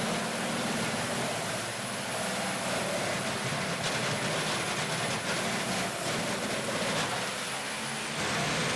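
Rotochopper B66T 950-horsepower wood grinder running steadily, its engine and mill giving an even mechanical noise while grinding wood into biomass fuel.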